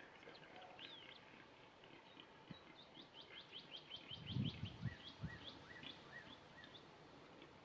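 Wild birds singing, with strings of quick chirps that sweep up and down in pitch, busiest in the middle. A few low, muffled thumps come about four to five seconds in.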